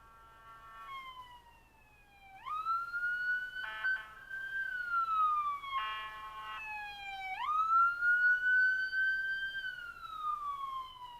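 Emergency vehicle siren sounding a slow wail, its pitch sweeping up and then gliding down about every five seconds. Short steady horn blasts cut in between the wails.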